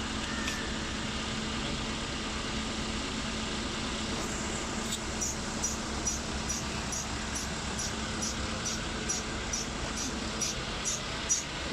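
Steady mechanical background hum. About five seconds in, a rapid, even ticking starts, a little over two ticks a second, and grows stronger toward the end.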